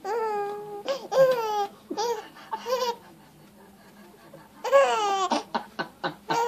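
Baby laughing in high-pitched squealing bursts as she is tickled with a napkin. After a lull about halfway through comes a longer laugh that breaks into quick short ha-ha pulses near the end.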